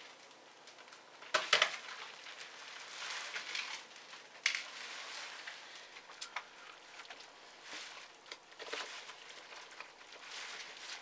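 Small clicks, taps and rustles of fingers and a small tool working on plastic and metal parts inside an opened laptop, with a louder clattering run of clicks about a second and a half in.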